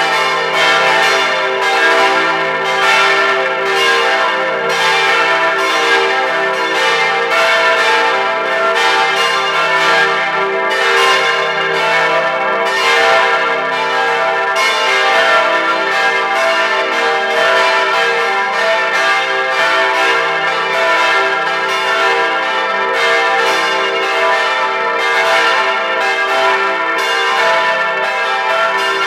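Full peal of four 1953 Rincker bronze church bells tuned e', g', a' and c'', swinging on straight yokes and ringing together, heard up close inside the belfry. The strikes overlap in a loud, steady jumble of ringing tones.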